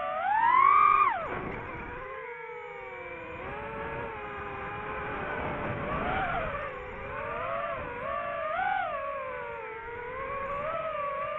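DJI FPV quadcopter's brushless motors and propellers whining. The pitch climbs steeply with a throttle punch, loudest about a second in, then drops sharply and keeps wavering up and down with the throttle.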